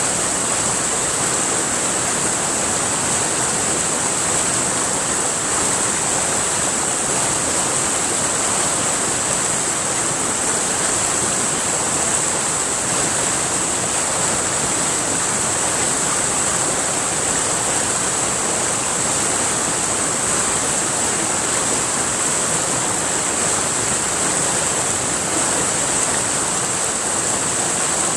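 River water rushing steadily over rocks: a constant, even hiss, brightest in the high range, with no change throughout.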